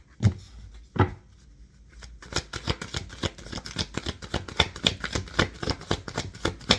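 A deck of tarot cards being shuffled by hand: two soft knocks of the deck in the first second, then from about two seconds in a quick, dense run of cards flicking and slapping together.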